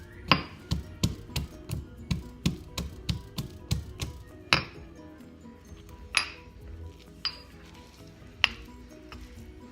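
Knife chopping on a cutting board, about three even strokes a second for the first four seconds, then a few separate clinks of kitchenware, over background music.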